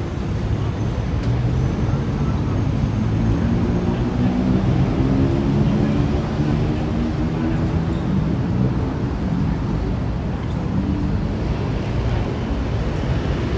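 Steady city road-traffic rumble, with a heavy vehicle's engine swelling and fading as it passes in the middle.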